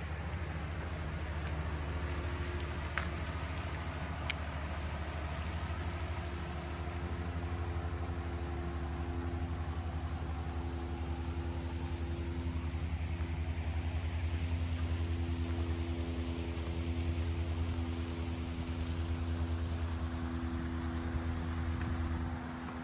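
An engine running with a steady low rumble and a faint steady hum over it. Two brief clicks come about three and four seconds in, and the rumble drops a little just before the end.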